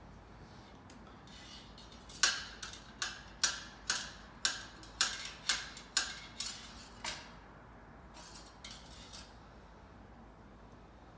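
A run of about a dozen sharp, hard taps, roughly two a second, starting about two seconds in and stopping around seven seconds, over faint shop background.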